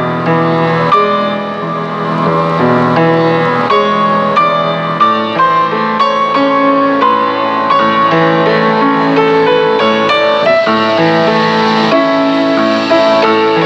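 Background piano music, a continuous run of notes with no break.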